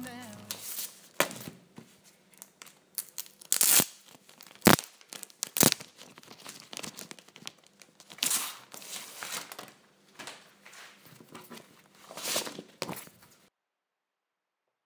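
Clear plastic packaging sleeve crinkling and rustling as it is handled and opened, with a few sharp crackles about four to six seconds in. The sound stops abruptly near the end.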